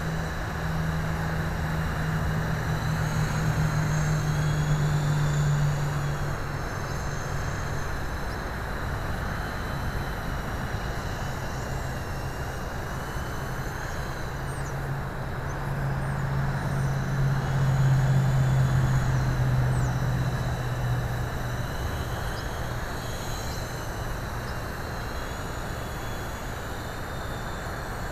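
eSky Big Lama coaxial electric RC helicopter in flight, its rotors giving a steady low buzz that grows louder twice as it flies nearer, over a steady rushing hiss.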